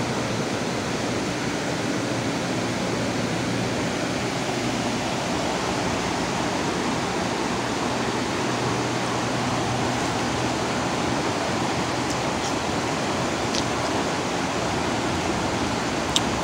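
River rushing and babbling over shallow rapids: a steady, even rush of water. A sharp click sounds near the end.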